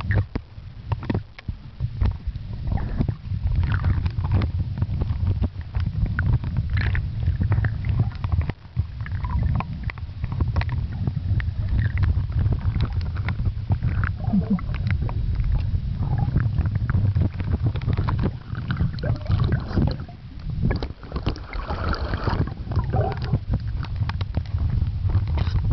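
Sea water heard through a submerged camera: a steady low rumble of moving water, with frequent small clicks and crackles throughout.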